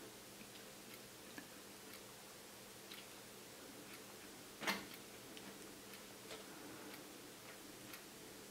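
Faint, scattered ticks and clicks, with one louder short knock about halfway through, from hands turning the primary-mirror alignment screws on the back of a Celestron NexStar 130 SLT reflector tube.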